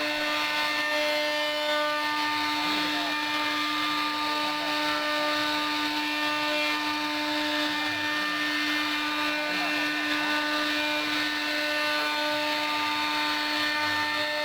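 CNC router spindle running at a steady high whine, with the rasp of the bit cutting into wood.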